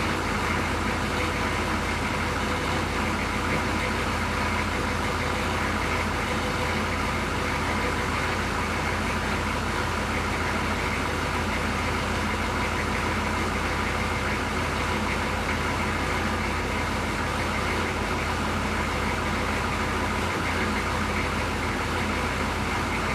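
Chevrolet CUCV M1028 pickup's 6.2-litre diesel V8 idling steadily, running on its first start after years of sitting.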